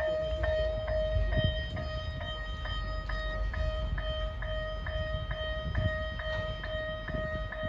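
Level-crossing warning bell ringing in a steady, even pulse of about two strikes a second, with a low train rumble underneath as a train approaches on the narrow-gauge line.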